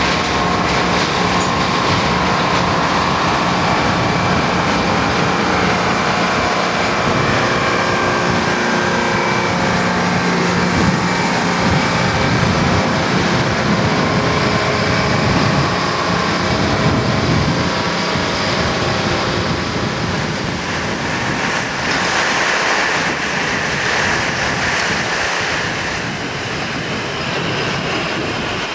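Rail-recovery work train rolling slowly past: a continuous clatter and grinding of steel with steady, high-pitched squealing tones running through it. In the last several seconds the sound turns to a harsher, more even hiss.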